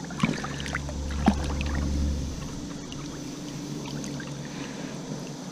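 Creek water sloshing and flowing in a fast current as someone wades through it, with a low rumble over the first two seconds and a couple of light knocks.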